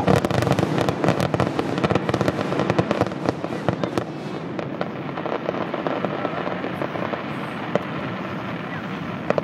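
Fireworks finale barrage: a rapid, dense run of aerial shell bangs and crackling bursts for about the first four seconds, thinning after that to scattered pops.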